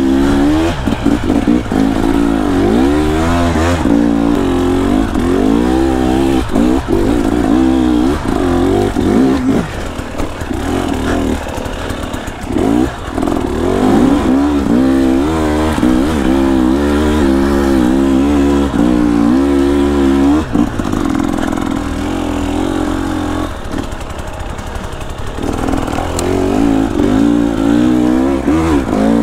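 Two-stroke dirt bike engine under constant throttle work, its pitch rising and falling as the throttle is opened and closed. It eases off briefly about a third of the way in and again about three-quarters of the way through.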